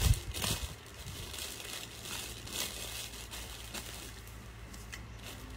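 Rustling and crinkling of clothes being pulled off over the head and peeled down the legs, in short bursts a second or so apart, loudest in the first half-second.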